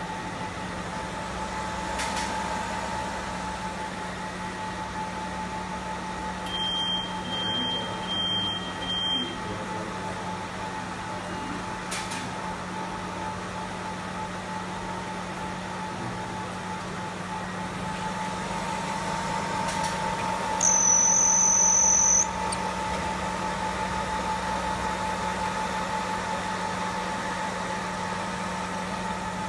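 WDS-750 BGA rework station running with a steady fan hum. Four short electronic beeps come in quick succession about seven to nine seconds in, and one longer, higher beep sounds about twenty-one seconds in, the loudest thing heard.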